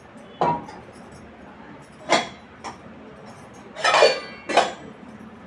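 Dishes and utensils clinking and knocking: about five separate strikes, some with a short metallic ring, the loudest a quick pair about four seconds in.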